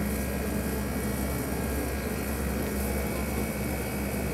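Steady wind buffeting a phone's microphone, heard as a constant low rumble with a rushing hiss.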